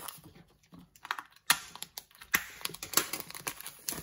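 Cellophane shrink-wrap crackling as it is peeled and pulled off a cardboard game box: irregular sharp clicks and crinkles, the sharpest about one and a half seconds in.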